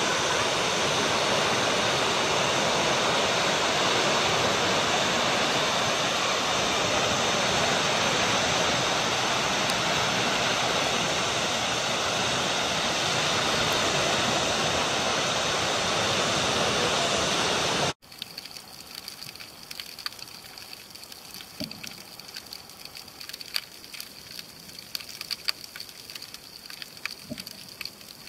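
Steady rushing noise of the sea and wind at the shore, cutting off abruptly about two-thirds of the way in. It gives way to a much quieter underwater sound: a faint hiss with a scattered crackle of small, sharp clicks.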